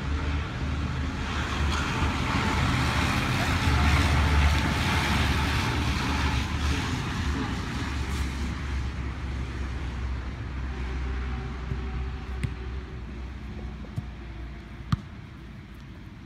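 Road traffic passing: the noise of a vehicle swells to a peak a few seconds in and slowly fades, over a steady low rumble. Near the end there is a single sharp thud of a football being kicked.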